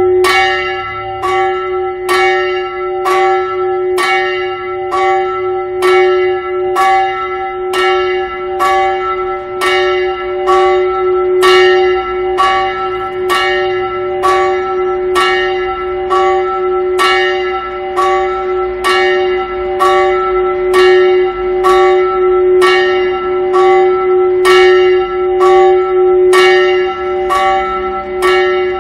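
Small 230 kg church bell ringing, its clapper striking about once a second in an even rhythm, each stroke ringing on into the next. It is rung as the call to a church service.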